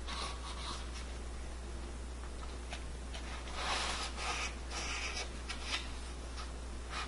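Hands pressing and rubbing a small glued crown-molding trim piece into place: irregular scratchy rubbing and small clicks, busiest in the middle, over a steady low hum.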